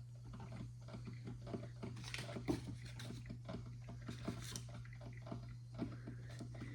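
Mr. Coffee drip coffee maker heating its water before brewing: irregular crackling, popping and gurgling over a steady low hum.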